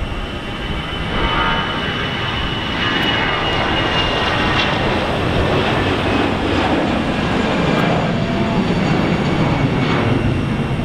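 Twin jet engines of an Airbus A320-family airliner at takeoff thrust. A steady roar with a thin fan whine that drifts slightly down in pitch gets louder about a second in, and a low rumble builds in the second half as the aircraft lifts off and climbs away.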